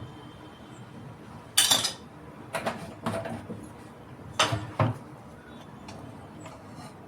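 Kitchen utensils clattering and clinking against cookware in three short bursts of quick knocks: one about a second and a half in, a longer one around three seconds, and one around four and a half seconds.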